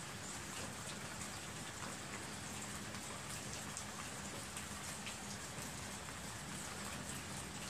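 Steady rain falling: an even hiss with scattered sharp drip ticks.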